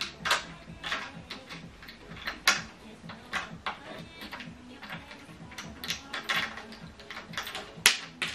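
Flat-pack melamine-faced chipboard desk being assembled by hand: irregular clicks and scrapes of a fitting being turned and tightened in a panel edge, with two sharper clicks, one about two and a half seconds in and one near the end.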